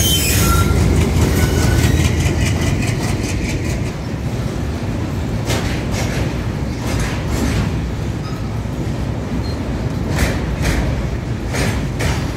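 A freight train passing close on the adjacent track, heard from a moving train: a continuous heavy rumble of locomotive and wagon wheels on the rails, with sharp clacks in quick pairs as wagon bogies cross rail joints, about halfway through and again near the end.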